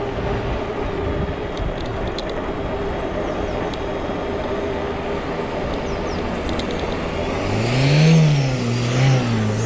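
Cyrusher Trax fat-tyre e-bike climbing, its electric motor whining at a steady pitch over tyre and wind noise. Near the end a louder pitched sound rises and falls in pitch.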